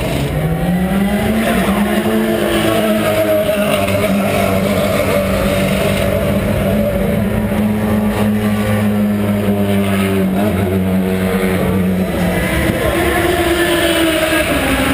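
IndyCar race car engines (Honda V8s) running. The main engine note rises over the first couple of seconds, holds steady, then drops away about twelve seconds in, with other engines at other pitches under it.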